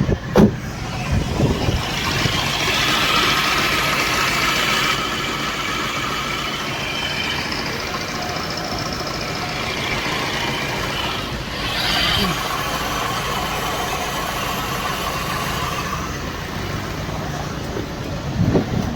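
Tata Manza engine running at idle with a loud high-pitched noise from the pulley side over the engine hum, which the owner takes for a worn pulley bearing. The high noise is strongest a few seconds in and eases off near the end.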